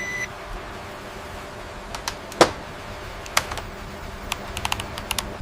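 Scattered sharp clicks over a steady low hum, with one louder knock about two and a half seconds in and a quick run of clicks near the end.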